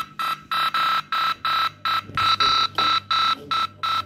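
Electronic alarm-like buzzing beeps repeating rapidly, about three pulses a second, each a steady high tone, played through computer speakers.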